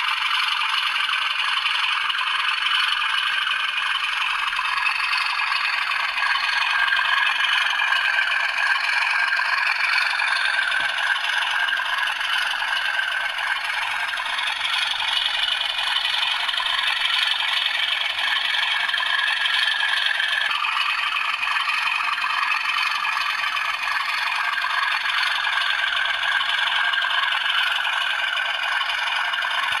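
Sound-fitted model Class 37 diesel locomotives playing their recorded engine sound through small onboard speakers: a steady, thin idling drone with no low end, whose note shifts slightly about two-thirds of the way through.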